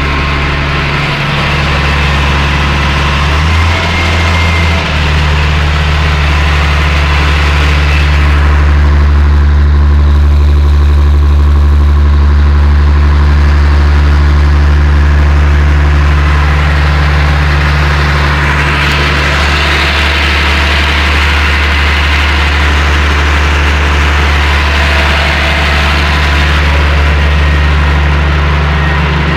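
Six-cylinder Perkins turbo-diesel of a Massey Ferguson 6180 tractor idling steadily, freshly started after a month standing, with a thin turbo whistle above the diesel note.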